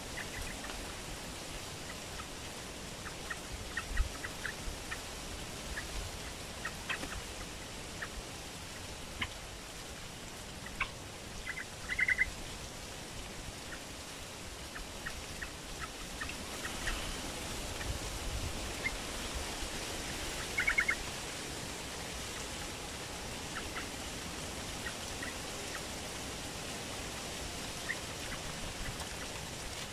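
Caged trao trảo birds chirping: scattered short, high chirps, with two quick runs of rapid chirps, over a steady background hiss.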